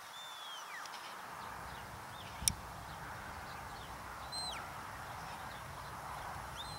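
Shepherd's whistle commands to a working sheepdog: three clear whistles that slide down in pitch, the first at the start, the second held briefly before falling, the third near the end. A single sharp click about two and a half seconds in, over a steady outdoor hiss.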